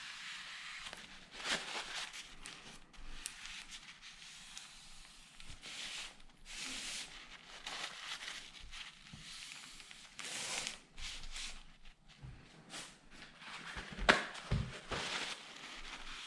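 Hands working on a tablet at a bench: irregular rustling and light tapping, with one sharper knock about 14 seconds in.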